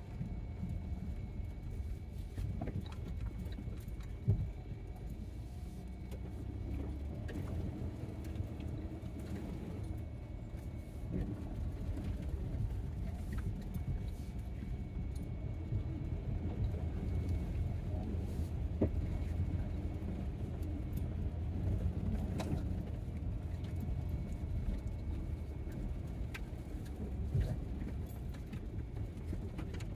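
Vehicle driving slowly over a rutted dirt track, heard from inside the cabin: a steady low rumble of engine and tyres, with occasional knocks and rattles as it goes over bumps.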